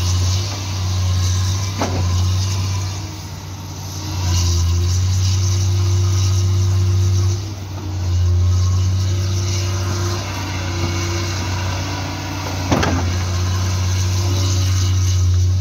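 Kobelco hydraulic excavator's diesel engine running under load while digging, its drone swelling and easing as the hydraulics work. Two sharp knocks stand out, one about two seconds in and one later on.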